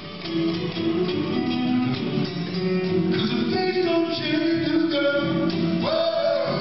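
Live blues on an acoustic guitar, with a man singing; near the end he holds a long sung note.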